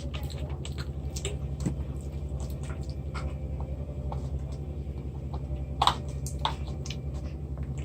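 Close-miked eating and drinking sounds: small wet mouth clicks and sips scattered throughout, with a louder short swallow or slurp about six seconds in, over a steady low hum.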